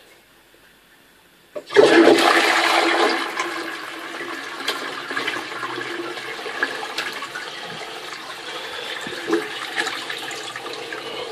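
Toto Tornado Flush toilet flushing: a brief click, then a sudden loud rush of water about two seconds in that eases after a second or so into steady swirling, running water in the bowl.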